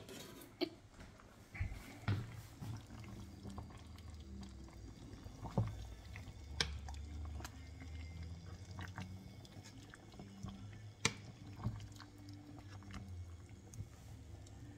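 Metal spoon stirring and scooping sauce in a pot of meat and potatoes: faint liquid sloshing and dripping, with scattered light clicks of the spoon against the pot.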